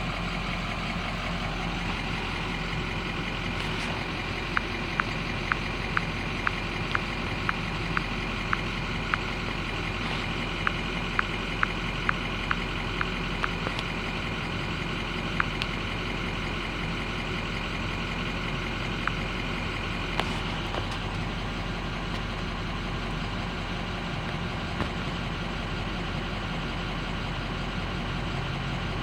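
Ford 6.0 Power Stroke V8 turbodiesel idling steadily. A run of sharp clicks, about two a second, goes on for roughly nine seconds starting about four seconds in, and a few single clicks come later.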